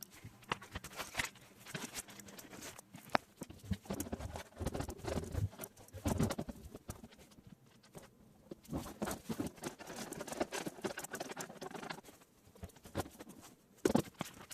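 Irregular clicks, taps and rustling of computer parts being handled and fitted into a desktop PC case.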